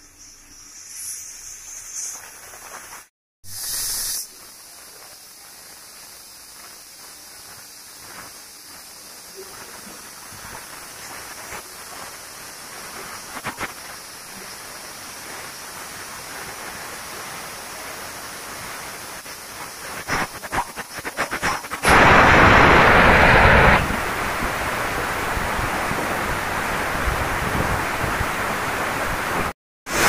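Aluminium pressure cooker on a gas burner building pressure: a hiss of escaping steam grows slowly louder, with crackling spits. About 22 seconds in, the weighted valve lifts and the whistle blows as a loud blast of steam for about two seconds, then settles into a steady hiss.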